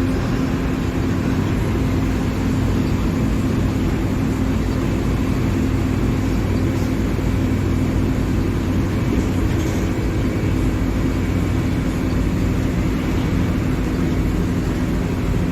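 Diesel engine of a Mercedes-Benz OF-1721 Bluetec 5 bus running at a steady speed: a continuous drone whose pitch holds level throughout.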